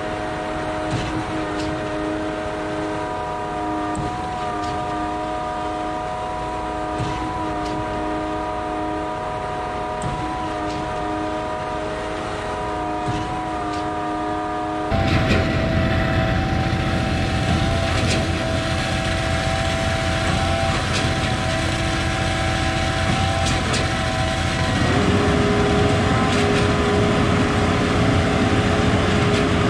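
Concrete boom pump truck running under load: a steady engine drone with a held whine. About halfway through it jumps abruptly louder, and near the end the pitch shifts.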